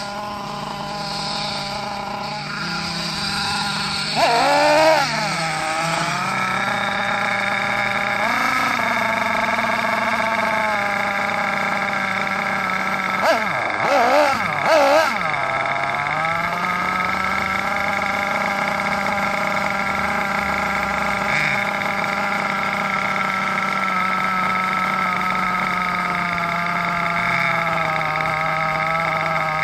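HPI Savage XL radio-controlled truck's small two-stroke engine idling steadily, revved briefly about 4 seconds in, again near 8 seconds, and blipped three times in quick succession around the middle.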